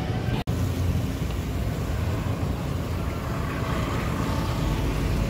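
City street traffic: cars and motorbikes running through an intersection, a steady low rumble. The sound cuts out for an instant about half a second in.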